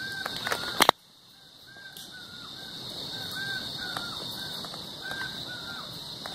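Night sounds: a steady high-pitched insect chorus with short rising-and-falling chirps repeating, often in pairs. Just before a second in, a sharp double knock is the loudest sound, after which everything dips briefly and fades back up.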